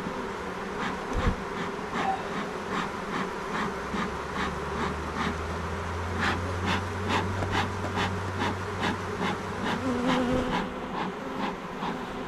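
Honeybees buzzing around an open, agitated hive, with a quick run of short puffing sounds at about two to three a second.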